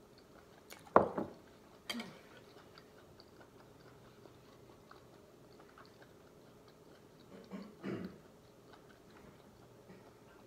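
A person chewing a mouthful of raw shrimp, with a few short louder mouth sounds about one and two seconds in and again around eight seconds.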